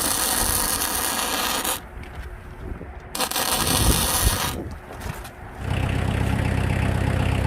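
Two stretches of harsh scraping or hissing noise, then an engine comes on about three-quarters of the way through and runs steadily at idle with an even low throb, the power source for the hydraulic log splitter.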